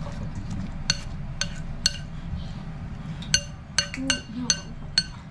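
A metal spoon stirring thick vegetable batter in a glass mixing bowl: repeated sharp clinks of spoon on glass, each ringing briefly, several coming close together in the second half, over a soft low stirring sound.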